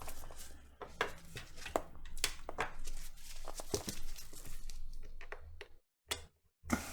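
Irregular clicks and scrapes of a suction cup and plastic pry tool being worked at an iPhone 7's glued display, which is stuck fast and will not lift.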